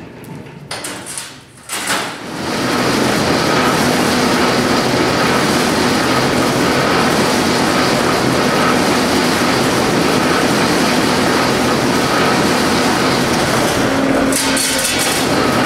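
Old industrial power squaring shear running: a few knocks in the first two seconds, then a steady, loud mechanical running noise with a faint whine through it.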